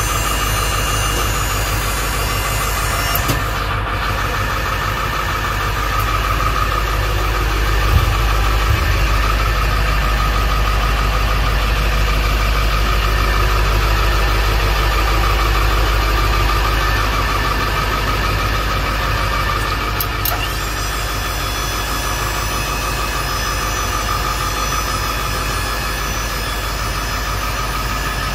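Ford F450 dump truck's engine idling steadily, with a few light knocks about 3, 8 and 20 seconds in.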